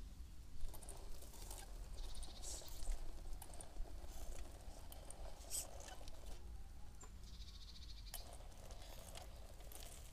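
A 1:10 RC rock crawler creeping down a rubberized slope. Its motor and drivetrain whir in short bursts, twice rising in pitch, while the tyres crackle over dry leaves and scuff the rubber surface with small clicks.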